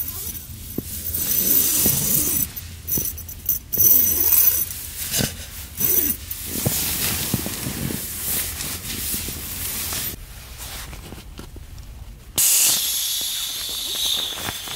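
Down sleeping bag and clothing rustling in irregular bursts as someone shifts and sits up. About twelve seconds in, a sudden steady hiss begins: air rushing out of an inflatable sleeping pad's valve as the pad is pressed down to deflate it.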